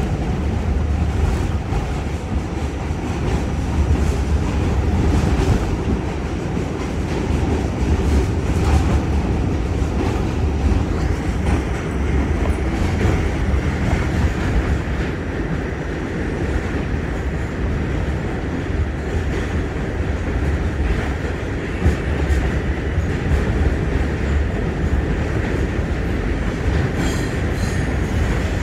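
R46 subway car running at speed, heard from inside the car: a steady heavy rumble of wheels on the rails. Near the end, high-pitched wheel squeal sets in.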